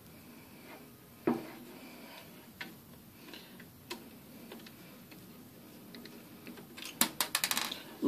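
Scattered small metallic clicks and taps from a screwdriver working screws out of a graphics card's bracket, with a louder knock about a second in. Near the end a quick clatter of sharp clicks, coming faster and faster, as a small screw falls and bounces on the desk.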